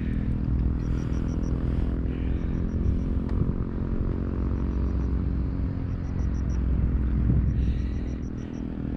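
A steady low rumble, with short high chirps repeating in quick groups of four or five several times over it.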